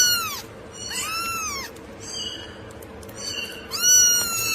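A cat meowing repeatedly: several high meows that rise and fall in pitch, the last one drawn out and starting near the end.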